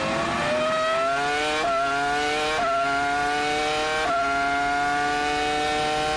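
Williams-BMW FW26's 3.0-litre BMW V10 Formula One engine at full throttle, pulling out of a slow corner. Its pitch climbs steadily and drops back with each of three quick upshifts, about one and a half, two and a half and four seconds in.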